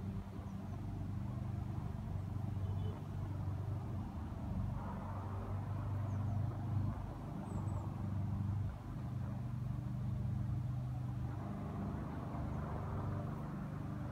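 Steady low engine hum with a rumble, like motor traffic running on without a break.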